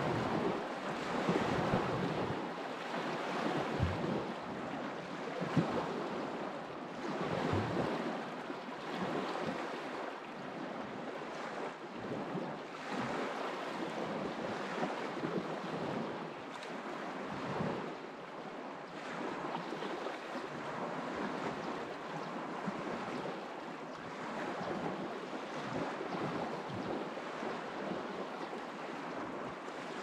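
Water of the Bukhtarma River making a steady, even rushing noise, with wind buffeting the microphone in gusts during the first several seconds.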